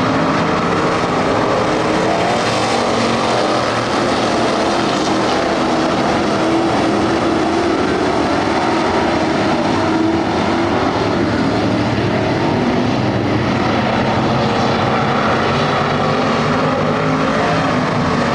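A field of dirt-track stock cars racing around the oval. It is a loud, continuous blend of several engines under throttle, with pitches wavering as cars pass and the pack moves around the track.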